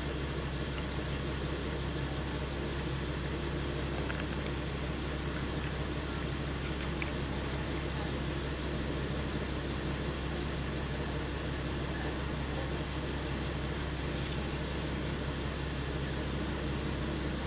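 Diesel railcar idling as it stands at a station, a steady low engine hum.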